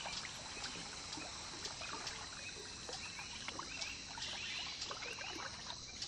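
Faint wetland ambience: a steady high insect hum with scattered soft clicks and a few short rising chirps.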